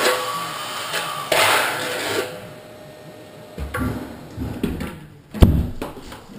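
Trowel scraping thinset across the back of a large-format wall tile for the first two seconds or so, then a few light knocks and one sharp thump about five seconds in as the tile work goes on.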